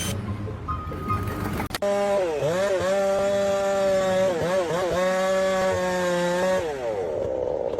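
A small engine running at high revs, its pitch dipping and climbing back several times before it drops away near the end.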